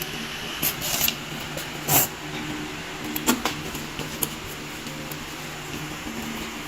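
A few short crackles and tears of corn husk being peeled off an ear of corn, the loudest about two seconds in and again a second later, over a steady low hum.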